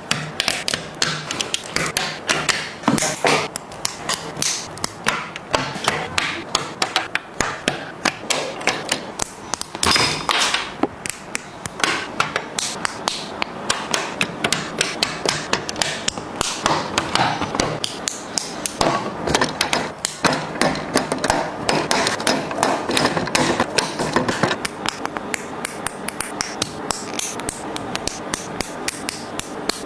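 Plastic Lego bricks clicking and snapping together as pieces are pressed onto a baseplate and into the build, close to the microphone. Many sharp, irregular clicks, several a second.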